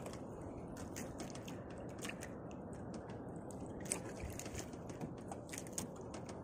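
Steady water noise around a small boat, with scattered light clicks and taps while a fishing longline is hauled in by hand over the gunwale.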